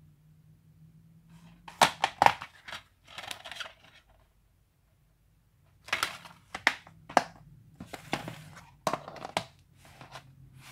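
Plastic DVD cases handled and set down on a wooden table: sharp clacks and sliding, scraping rustles. They come in two bursts, about two seconds in and again from about six seconds in.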